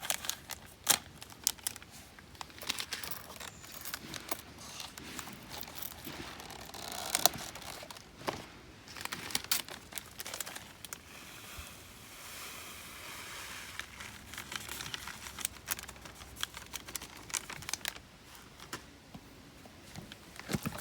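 Crinkling and crackling handling noise with many irregular sharp clicks, as fire-starting material is worked by hand.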